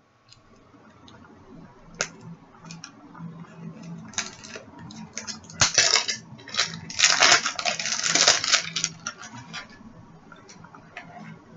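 Plastic cellophane wrap crinkling and tearing as it is pulled off a hockey puck, with scattered clicks and knocks; the crinkling is densest about six to nine seconds in.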